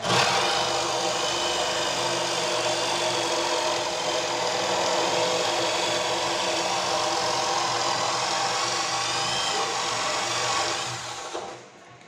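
Electric drill with a spade bit running steadily as it bores into the edge of a wooden door. Its pitch dips briefly a few times under load, and near the end the motor runs down and stops.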